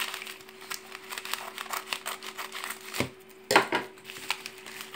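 Scissors snipping along the edge of a plastic postal mailer, with the plastic crinkling and rustling in short clicks. Two louder knocks about three seconds in.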